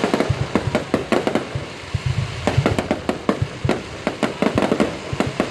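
Fireworks bursting overhead: a rapid, irregular string of sharp bangs and crackles, several a second, with deeper booms among them.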